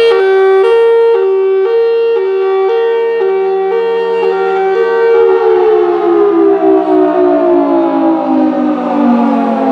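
Outdoor tornado warning siren alternating between two pitches, switching about every half second. About five seconds in it winds down, its pitch falling steadily.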